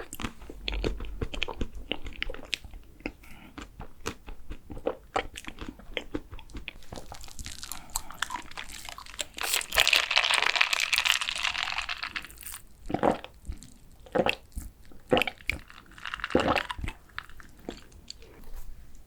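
Close-miked eating sounds: many short crunching bites and chewing, with a longer, louder noisy stretch about eight to twelve seconds in.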